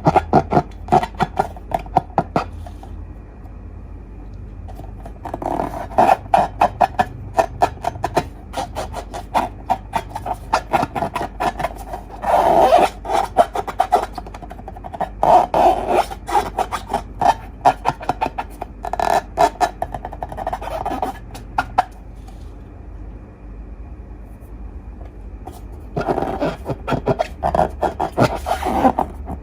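Slime being squeezed and kneaded by hand: rapid sticky clicks and crackles in bursts of a few seconds, with quieter pauses about three seconds in and again about two thirds of the way through.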